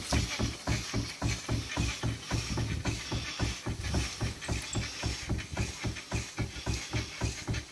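Marshall 7 hp portable steam engine running in steam, its exhaust beating in a quick, even rhythm of about four to five beats a second.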